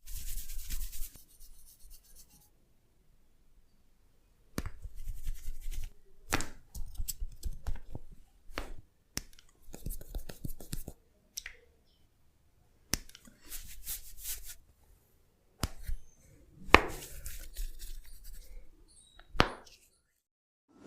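Hands rubbing and kneading a person's head and hair, broken by several sharp cracks at irregular intervals, the loudest about three-quarters of the way in.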